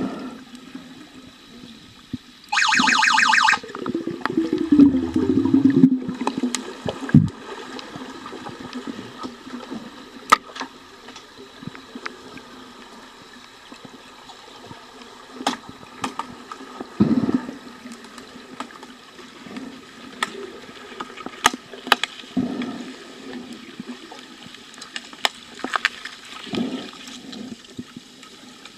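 Underwater hockey heard through a submerged camera: steady water and bubble noise with scattered sharp clicks and clacks of sticks and puck on the pool floor. A loud buzzing tone sounds for about a second, a few seconds in, followed by a gurgle of bubbles.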